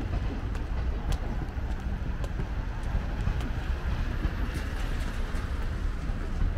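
Outdoor ambience on a rainy day: a steady low rumble with a haze of noise over it and a few scattered sharp ticks.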